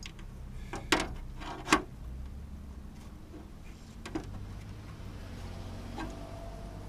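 A few sharp clicks and knocks, four in all, as a metal combination square is handled, slid and set against a white trim piece while it is being marked out, over a steady low hum.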